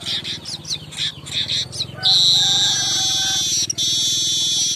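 Manyar (weaver bird) singing: a run of quick, falling chips, then, about two seconds in, a loud, long buzzing trill that breaks off for a moment near the end.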